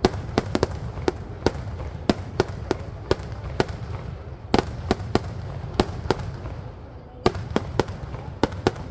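Festival fireworks: a rapid, irregular string of sharp firecracker bangs, about two or three a second, over a low rumble, with a short pause about two-thirds of the way through.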